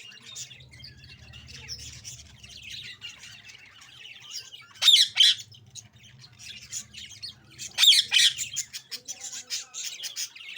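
Budgerigars chirping and chattering continuously, with loud harsh squawks about five seconds in and again about eight seconds in. A faint low hum runs underneath for most of it.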